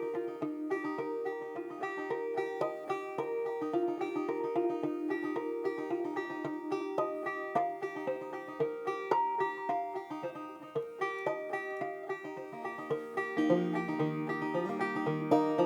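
A five-string banjo picked in a fast bluegrass roll, with quick repeated notes, moving to lower notes near the end.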